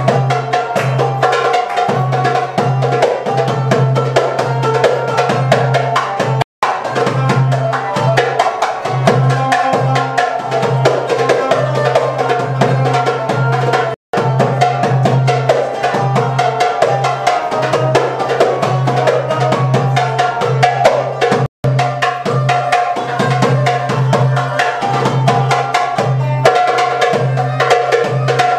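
Qanun (plucked Arabic zither) and Middle Eastern tabla (goblet drum) improvising together: rapid drum strokes under a plucked melody. The sound drops out for an instant three times.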